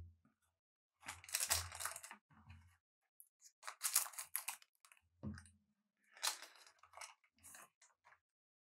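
Foil trading-card pack wrapper crinkling and tearing as it is opened, in three main bursts with smaller rustles and handling knocks between them.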